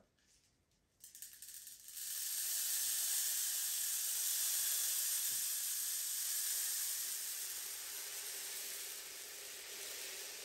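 Granular CO2-adsorbent media (Fauna Marin Skim Breeze) being poured from a tub into a clear reactor tube: a steady rushing hiss of pellets streaming in. It begins with a few scattered crackles about a second in and eases off slightly near the end.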